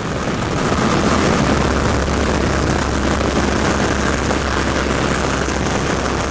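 De Havilland Tiger Moth biplane in flight, heard from its open cockpit: its four-cylinder inverted engine running steadily under a loud, even rush of slipstream wind over the microphone.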